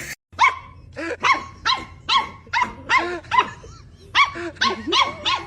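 A dog barking over and over in short, evenly spaced barks, about two to three a second.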